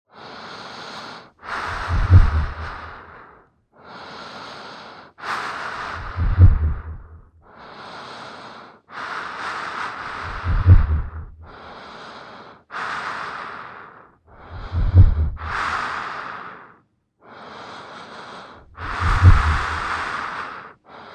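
Slow, heavy breathing, about five breaths roughly four seconds apart. Each has a quieter in-breath and then a louder out-breath with a deep low boom at its peak.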